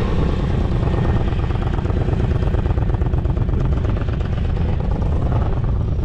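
Motorcycle engine running steadily, with a heavy low rumble under it.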